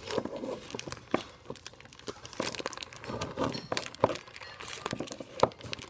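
Scissors cutting open a plastic poly mailer bag: the plastic crinkles and rustles as it is handled, with sharp snips at irregular intervals.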